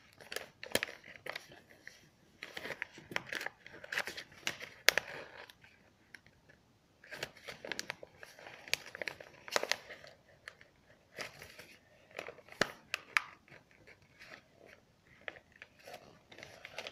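A sheet of paper being folded and creased by hand: irregular rustling and crinkling with sharp little crackles, coming in bursts with brief pauses.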